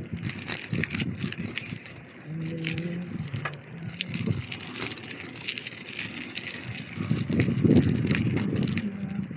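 Bicycle being ridden, with many sharp clicks and rattles from the bike all through. A short steady pitched tone sounds about two and a half seconds in.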